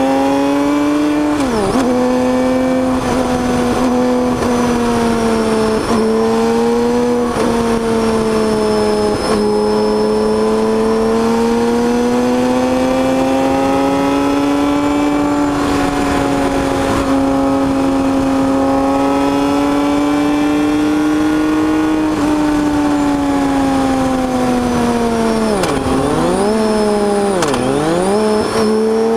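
BMW K 1600 GT's inline six-cylinder engine running under way at fairly steady revs, its pitch rising and falling gently, heard from a microphone under the seat. The revs dip sharply and pick up again about a second and a half in and twice in quick succession near the end.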